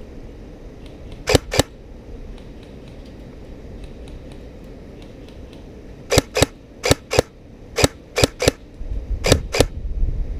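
Airsoft gun firing single shots, sharp clicks mostly in quick pairs a quarter-second apart: one pair about a second in, then a run of about nine shots over the last four seconds.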